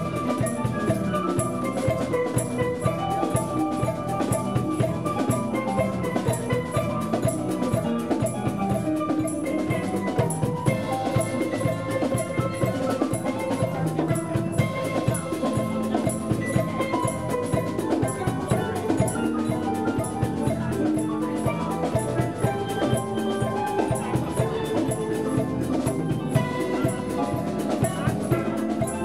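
A steel pan band playing a lively tune, with drum kit keeping a steady beat.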